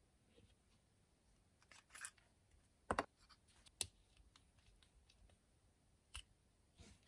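Small, sharp clicks and taps of black fountain pen parts handled and twisted by hand on a desk, with a little scraping. The loudest is a double click about three seconds in.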